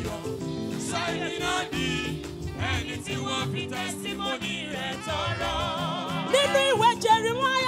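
Gospel choir singing over sustained chords of live accompaniment, the voices wavering with heavy vibrato. A lead voice comes in louder about six seconds in.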